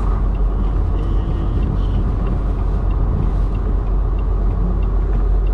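Semi truck's diesel engine running, a steady low rumble heard inside the cab.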